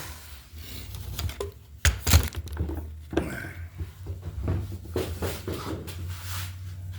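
Scattered knocks and clatter of a clamp and a board being handled and set on a wooden workbench, the loudest knocks about two seconds in, over a low steady hum.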